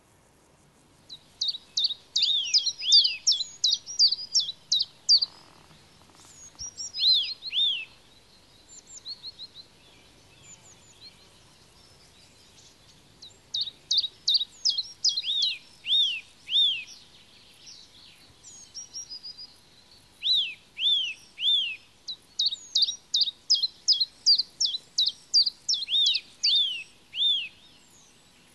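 Songbirds singing: repeated phrases of quick, high chirping notes mixed with falling sweeps, in three main bouts separated by quieter stretches of softer calls.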